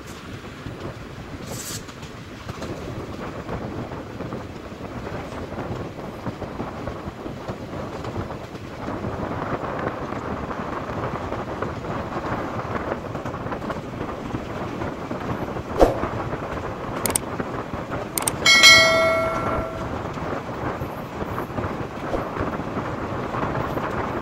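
Passenger train running at speed, heard from an open coach door: a steady rush of wheels on rail and wind, growing louder about a third of the way in. A sharp knock sounds about two-thirds through, and shortly after, the train's horn blows once for about a second and a half.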